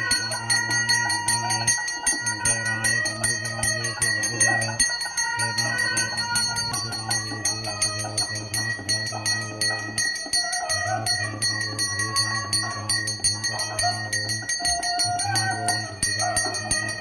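Brass puja hand bell rung rapidly and without pause during an abhishekam, its ringing overtones held steady. Beneath it runs a low steady drone in long stretches, broken by short pauses every few seconds.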